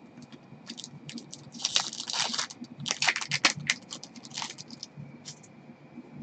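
Trading cards handled by gloved hands: quick scratchy rustles and light clicks as cards are flicked through and laid down on the desk, busiest in the middle.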